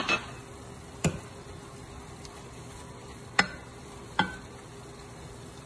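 Browned ground beef with freshly added white wine sizzling steadily in a stainless steel skillet. A wooden spoon stirs it, knocking sharply against the pan four times.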